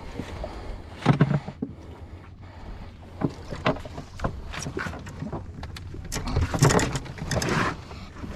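Clicks, knocks and rustles of fish and tackle being handled on a small fishing boat, over a steady low rumble. A louder, longer rushing noise comes about six to seven and a half seconds in.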